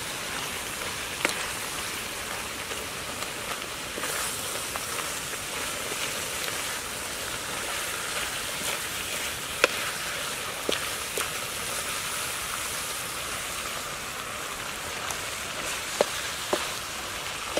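Stir-fry sizzling steadily in a wok, with a wooden spatula knocking and scraping against the pan several times.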